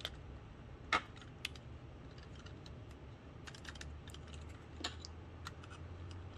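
Irregular clicks and clacks of 3D-printed plastic parts being handled and pressed together by hand, the sharpest about a second in and again near five seconds.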